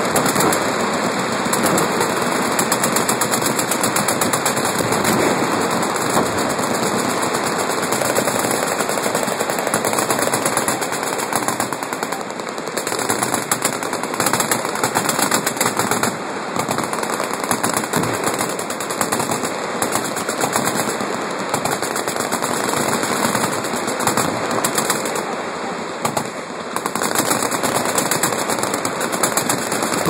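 Many machine guns firing together on a firing line: a continuous, dense rattle of automatic fire, easing slightly a couple of times.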